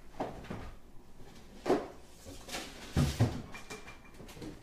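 Refrigerator door being opened and shut, with a few knocks and low thumps, the heaviest about three seconds in, and a short faint high tone near the end.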